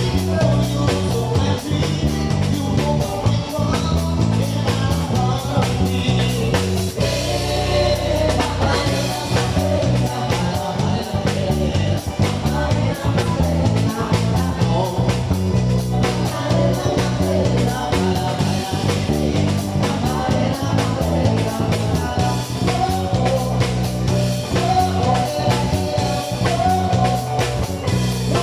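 A band playing rock music: guitar, bass and drum kit, with a steady bass line underneath.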